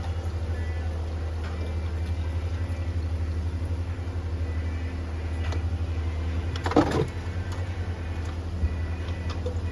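Peugeot 508 petrol engine idling steadily with an even low pulse. A brief clatter sounds a little under seven seconds in.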